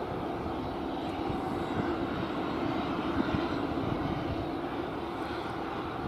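Boeing 737-800 freighter's CFM56-7B turbofan engines running at low taxi power, a steady jet engine noise heard from a distance.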